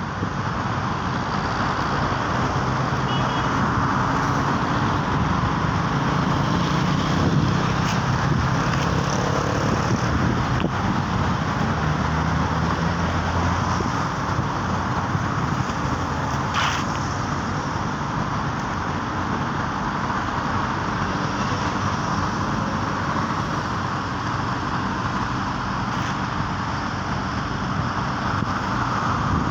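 Steady road traffic noise from passing cars, swelling with a deeper low rumble for several seconds before the middle.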